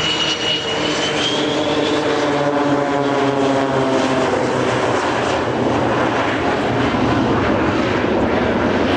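Boeing 727-200's three JT8D turbofan engines passing low: a high whine and a set of engine tones slide down in pitch over the first few seconds, then give way to a broad, steady jet roar.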